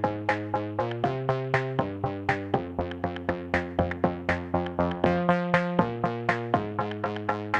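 Electronic background music: a synthesizer pattern of quick, evenly spaced notes over sustained chords.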